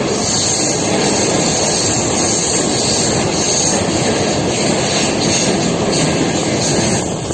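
Moving train running steadily along the track: a continuous rumble and rush of wheels on rails, with a high hiss over it that drops away about seven seconds in.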